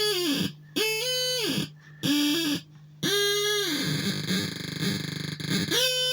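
A musical instrument played in wailing, sliding notes that droop in pitch at their ends, in short phrases broken by brief gaps, a sound its player says is like something in pain. A steady low hum runs underneath.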